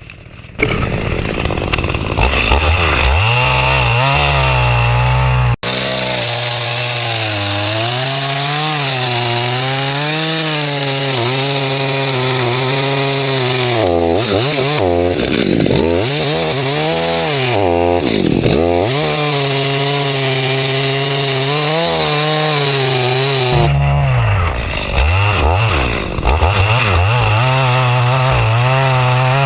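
Chainsaw running at high revs while cutting through wood, its engine note wavering up and down as the chain loads in the cut and dipping sharply twice around the middle before picking back up.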